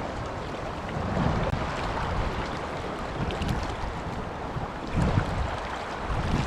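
Steady rush of river water around a drifting inflatable raft, with low rumbles of wind on the microphone about a second in and again about five seconds in.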